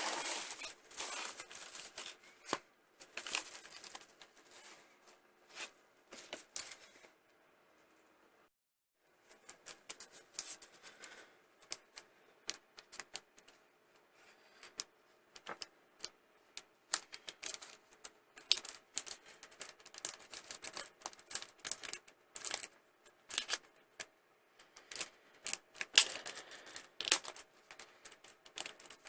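Hands opening a mail package: packaging tearing and crinkling, with many irregular sharp clicks and taps. It breaks off into a short stretch of silence about eight seconds in, then resumes.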